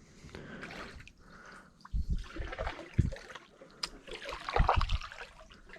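Canoe paddles dipping and swishing through lake water with splashes and drips, and a few dull knocks on the canoe about two, three and near five seconds in.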